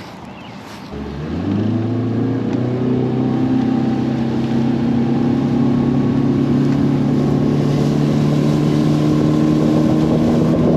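Outboard boat motor starting about a second in, revving up and then running at a steady speed.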